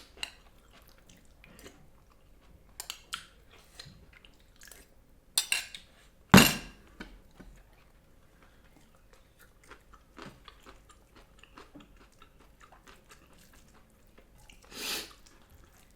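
Close-miked eating sounds: chewing with scattered small clicks and crunches. A sharp knock stands out about six and a half seconds in, and a short hissy burst comes near the end.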